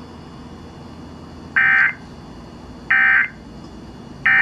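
Three short bursts of Emergency Alert System SAME digital data tones, about 1.3 seconds apart, over a steady faint background noise: the end-of-message code that closes an alert broadcast.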